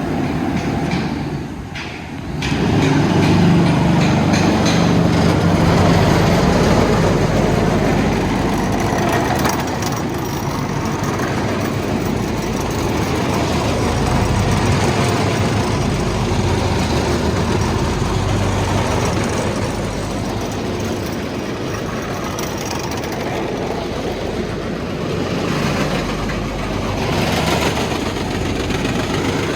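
Diesel engine of a Vögele Super 1803-3i asphalt paver running steadily. It dips briefly about two seconds in, then comes back louder.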